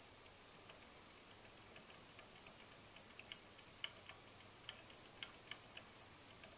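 Near silence with faint, short ticking clicks at irregular intervals, coming thicker in the second half.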